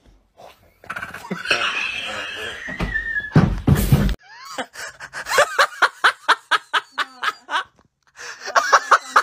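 A person laughing hard in short repeated bursts, about three or four a second, through the second half. Before it comes a stretch of rushing noise that ends in a loud burst of noise about three and a half seconds in.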